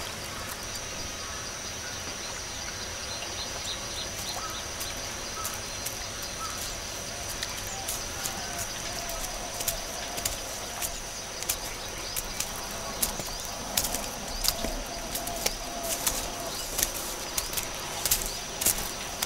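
Outdoor ambience of birds chirping over a steady high-pitched tone. From about halfway through, footsteps crunch on dry leaves and grass, growing more frequent toward the end.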